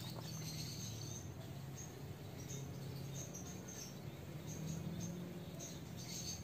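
Quiet room tone: a low steady hum with faint, scattered high-pitched chirps.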